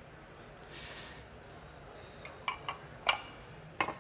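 A few short, sharp clicks and knocks, the loudest about three seconds in and just before the end, as small tile pieces and the vent tray are picked up and set down.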